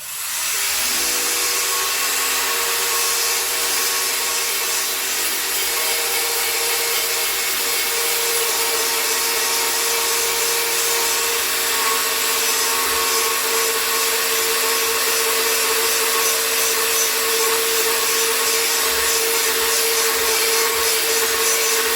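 Einhell cordless file sander, a narrow-belt sander, running steadily with its abrasive belt grinding down a weld on metal: a steady motor whine over a constant hiss of sanding. It spins up at the outset and winds down at the very end.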